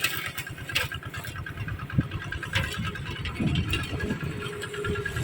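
Engine-powered sugarcane stubble-shaving machine running with a steady, rapid low chugging, with a few sharp knocks over it.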